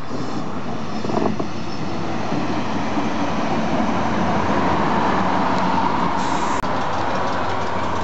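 Diesel railcar running, a steady engine drone with a couple of knocks about a second in.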